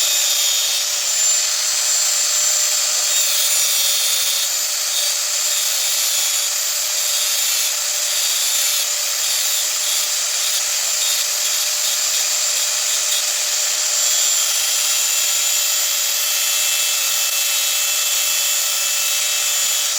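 A power tool running continuously: a steady, high-pitched hiss with a faint whine and no low rumble.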